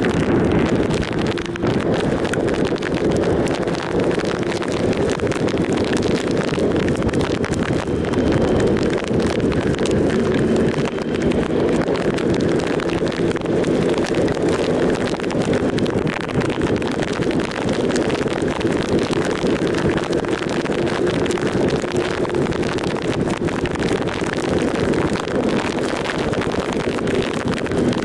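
Triumph Sprint ST 1050's three-cylinder engine running at a steady cruise, heavily mixed with wind rushing over the microphone.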